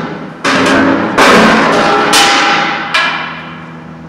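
Metal struck hard four times, each loud clank ringing on with a metallic tone and fading away before the next hit.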